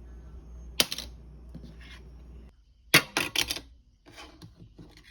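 Chase Sapphire Reserve metal credit card dropped for a drop test, clacking: one sharp clack about a second in, then a louder clatter of several quick bounces about three seconds in, and a few fainter taps after.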